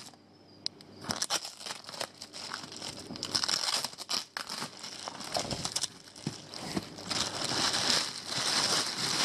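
Clear plastic wrap crinkling and tearing as it is pulled off a cardboard shipping box, starting about a second in, followed by the plastic liner inside the box crinkling as it is opened.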